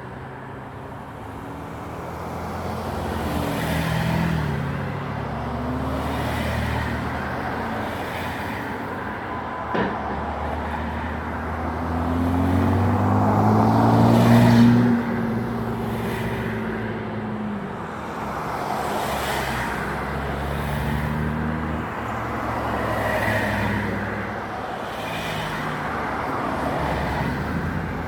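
Road traffic: vehicles passing one after another, their engine sound swelling and fading, the loudest pass about halfway through. A single sharp knock about a third of the way in.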